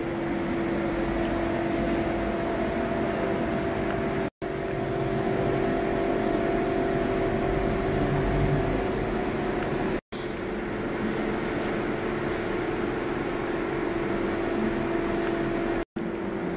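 Steady hum and rumble of a subway station platform, with a low steady tone running through it. It breaks off into brief silent gaps where the recording is cut, about four seconds in, about ten seconds in, and near the end.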